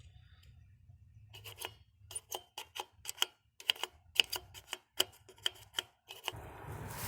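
An irregular run of short, sharp clicking scrapes, about three a second, from hands working a dirty plastic electrical connector and its contacts. A steady rushing noise takes over about six seconds in.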